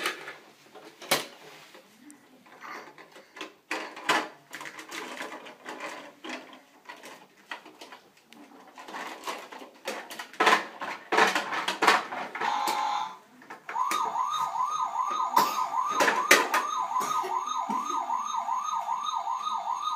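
Plastic toy trucks knocking and clattering as they are handled. About two-thirds of the way in, a battery-powered toy truck's electronic siren starts: a fast repeating rising wail, about two or three sweeps a second.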